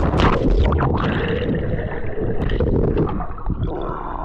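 Lake water sloshing and gurgling against a camera held at the water's surface, muffled and dense for about three seconds, then lighter.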